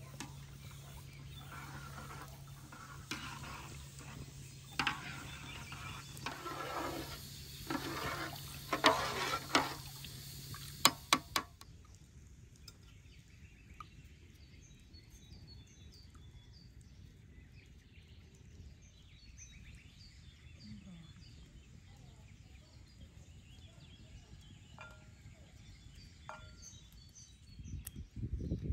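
A spoon stirring and knocking in an aluminium cooking pot over a wood fire, with a steady low hum behind it and a few sharp clicks about nine to eleven seconds in. After that it goes quieter: a rural backdrop with faint bird chirps, and near the end a knife cutting tomatoes on a ceramic plate.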